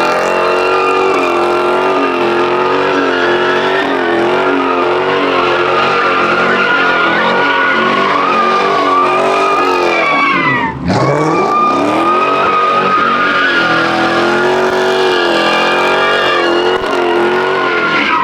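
Car engine held at high revs with its tyres spinning and skidding, as in a burnout or slide; the pitch wavers continuously, and about ten seconds in the revs drop sharply and climb straight back up. Loud throughout.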